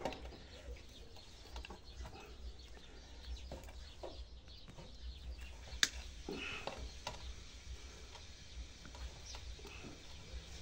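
Faint clicks and rustles of hands and a small hand tool working bonsai wire off a juniper's branches, with one sharp click about six seconds in, over a low steady hum.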